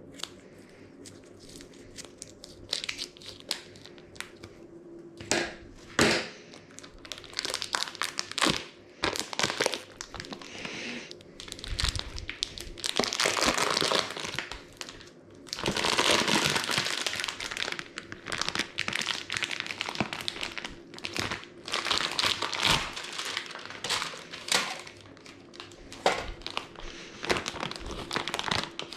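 Crinkly packaging being handled and crumpled: irregular rustling with sharp crackles, and a longer, louder spell of crumpling just before and just after the middle.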